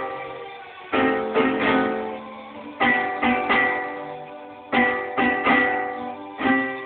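Acoustic guitar strummed in short groups of about three chords roughly every two seconds, each group ringing out and fading before the next.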